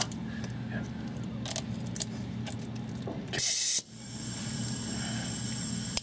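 Compressed air feeding a cylinder leak-down tester: a short loud blast of air about three and a half seconds in as the air is applied, then a steady hiss with faint high whistling as air flows through the tester into the cylinder and leaks out. A low steady hum sits underneath before the blast.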